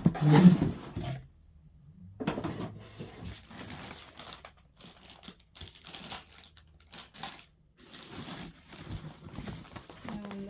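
Packaging being handled as a vacuum cleaner is unboxed: irregular crinkling and rustling of plastic wrap and cardboard, loudest in the first second, then a short pause and on-and-off handling noise.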